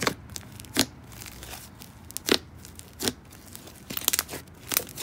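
Thick, fluffy clay slime being poked and squeezed by hand in its plastic tub, giving off separate sticky pops and crackles, with a quick run of crackles about four seconds in.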